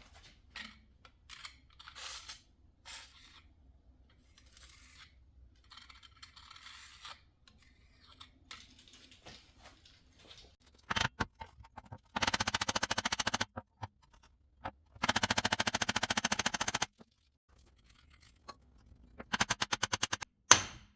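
Faint handling and scraping noises, then a couple of sharp knocks and three bursts of rapid, evenly spaced mechanical hammering from a power tool working the seized rear wheel hub assembly loose.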